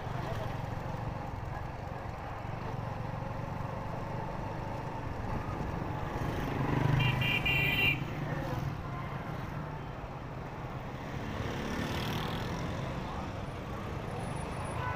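Honda motorcycle engine running while riding in dense city traffic, with the rumble of other vehicles around it. About seven seconds in, a horn beeps in a quick series for a second or so, the loudest sound.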